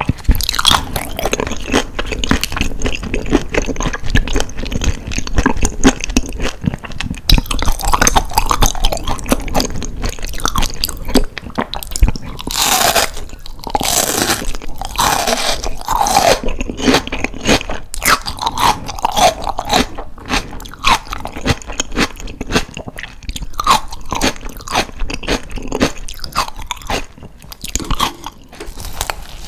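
Close-miked chewing and crunching of food in the mouth, including bites of crisp seasoned green onion: repeated crunches with moist mouth sounds.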